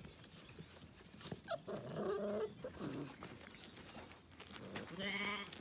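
Small puppy whining in two drawn-out calls, one about two seconds in and another near the end.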